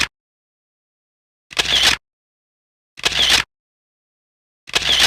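A short sound effect played again and again, each copy identical and about half a second long, with dead silence between. It comes three times plus the end of one, roughly every one and a half seconds.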